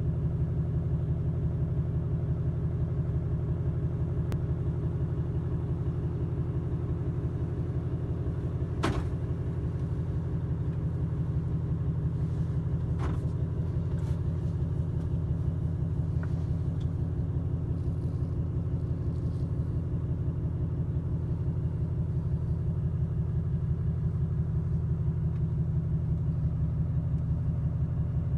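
Volvo FH 460's 13-litre straight-six diesel engine idling steadily, heard from inside the cab, with a few light clicks.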